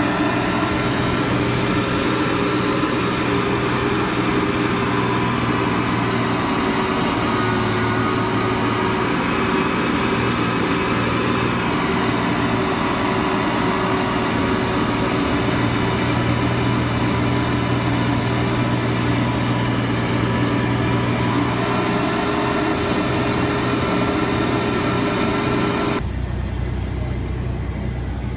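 Versa Bagger ID 912 silage bagger running steadily as it packs chopped corn silage into a silage bag, a dense machine drone with steady tones over a hiss. A couple of seconds before the end the sound abruptly turns duller and lower.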